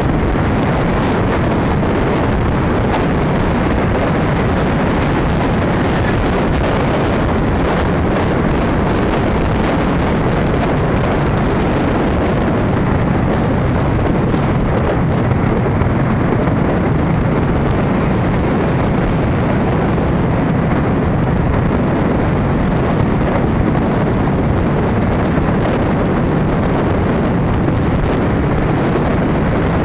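Steady rush of wind buffeting the microphone of a camera travelling along a road, with engine and road noise from traffic underneath.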